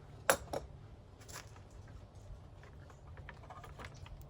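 Scattered clicks and light taps of hand work on the radiator's cooling-line fittings, with a sharp double click near the start and smaller ones after.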